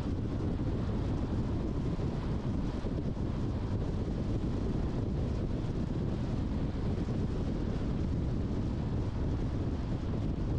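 Steady road noise of a car driving: a low rumble of tyres and engine with a rushing hiss over it, even throughout.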